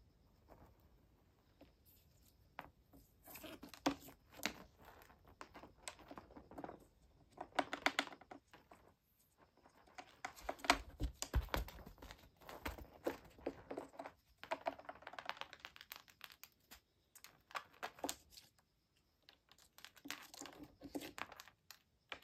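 A cat scrabbling and pouncing at a wand toy on and around a corrugated cardboard scratcher, its claws scraping and crackling on the cardboard. The sound comes in repeated scratchy bursts a second or two long, with short pauses between.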